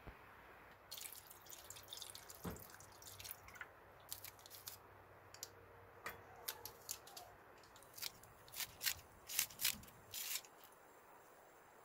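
Ingredients dropping into a small stainless pan of water: a run of short plops, drips and clicks, loudest near the end as chopped green onion goes in.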